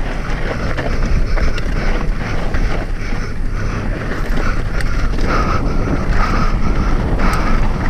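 Wind buffeting the microphone of a camera on a hardtail mountain bike riding over rough ground, with steady rushing noise and a scatter of small rattling clicks.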